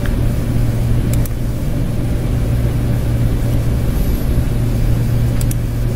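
Steady low background hum, with a few faint mouse clicks about a second in and near the end.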